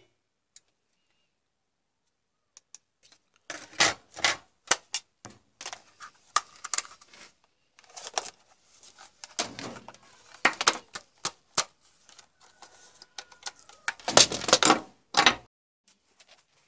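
Clicking and clattering of hand tools and a circuit board being handled on a workbench: irregular knocks begin a few seconds in, with a louder burst of clatter near the end.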